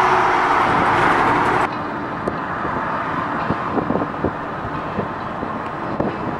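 Jet engine noise from a Boeing 777F's GE90 engines as it climbs out overhead, a loud rush with steady whining tones, cut off abruptly about a second and a half in. Then quieter road noise from a moving car with scattered light knocks.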